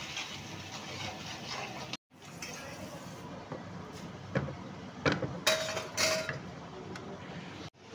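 A spoon stirring and scraping in cooking pans, over a steady hiss. In the second half comes a run of sharp clinks of the utensil against the pan, one of them ringing briefly.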